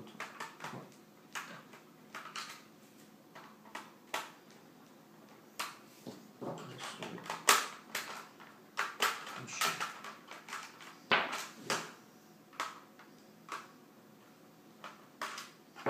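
Irregular sharp clicks, taps and short scrapes of a small screwdriver and plastic parts on the underside of an Acer Aspire 5520G laptop as its bottom access cover is worked loose.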